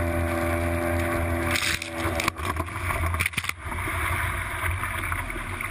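Small tiller outboard motor running on an aluminium boat under way, with a loud, even rush of wind and water over the microphone and a few sharp knocks about two and three seconds in.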